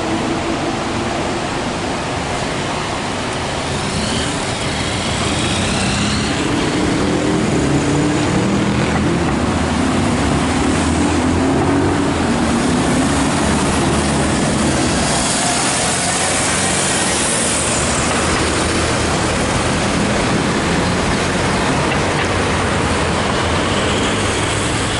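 Diesel engine of a Mercedes-Benz Arocs concrete mixer truck pulling away in slow, dense city traffic. Its pitch climbs over several seconds, then it runs steadily among the surrounding traffic noise.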